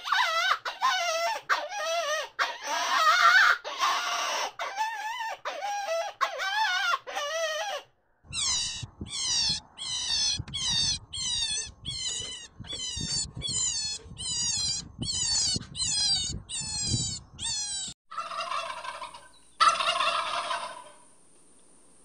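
Domestic fowl calling over and over. First come about eight seconds of wavering, honk-like calls. Then a long run of short, quick, falling calls, about one and a half a second. A louder call comes near the end.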